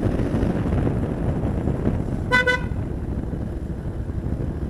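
Motorcycle riding along at steady road speed, its engine and road noise making a steady low rumble, with one short horn beep a little over two seconds in.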